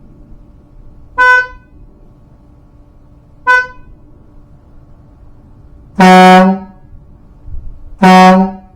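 A motorhome's original wimpy-sounding horn gives two short, higher-pitched honks, then the newly installed compressor-fed air horn gives two longer, louder, deeper blasts about two seconds apart.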